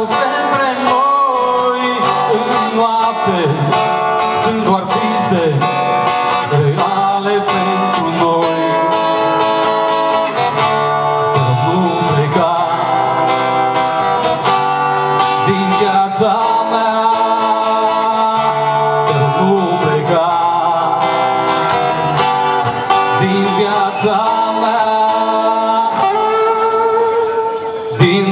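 Live music: a man singing a Romanian pop song over a strummed acoustic guitar.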